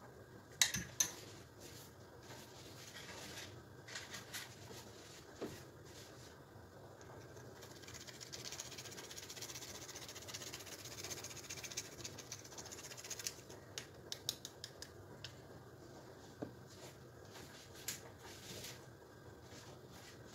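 A spoon clinking against a ceramic plate a couple of times near the start, then several seconds of steady rasping as a whole nutmeg is rubbed on a fine hand grater over the plate, followed by scattered light taps.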